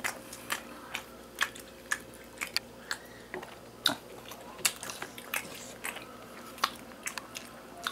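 People eating at a table: irregular sharp clicks and crunches of chewing crispy sweet-and-sour fried pork, with chopsticks tapping the dishes.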